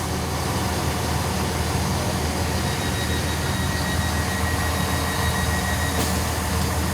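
Class 166 diesel multiple unit's underfloor diesel engines idling steadily while the train stands at a station, heard from inside the carriage. A faint steady high tone sounds from about three seconds in to about six seconds in.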